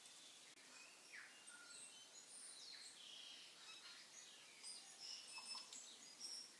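Faint, scattered bird chirps: many short, high calls, some gliding in pitch, growing busier toward the end, over a near-silent background.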